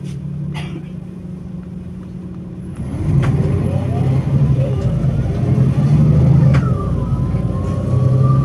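Mercedes-Benz Conecto O345 G articulated bus's engine running steadily, then revving up and getting much louder about three seconds in. A few sharp clicks, and a thin whine that rises slowly near the end.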